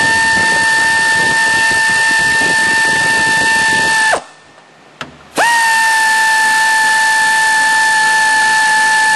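Air tool spinning a socket, running the thermostat-housing bolts down snug on a water pump: a loud steady whine. It stops about four seconds in and starts again about a second later, rising briefly in pitch as it spins up.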